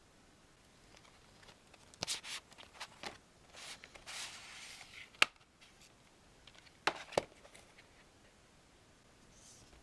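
A double-CD set in its slipcase being handled: scattered small clicks and taps, a brief sliding rustle about three and a half seconds in, and one sharp click a little past the middle, the loudest sound. Two more clicks follow close together about seven seconds in.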